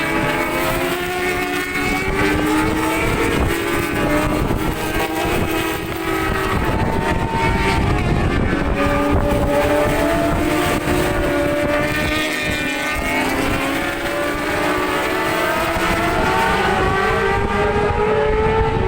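Several racing motorcycles running at speed at once, their engines rising in pitch and dropping back as the riders change gear, with the notes overlapping.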